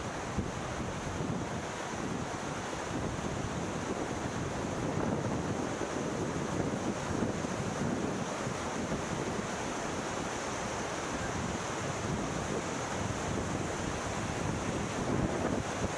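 Steady rushing of a mountain stream over rocks below, mixed with wind buffeting the microphone.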